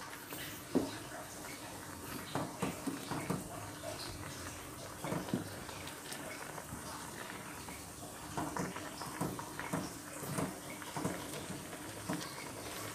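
Spatula stirring a small aluminium saucepan of hot liquid, with irregular scrapes and knocks against the pan's side and bottom.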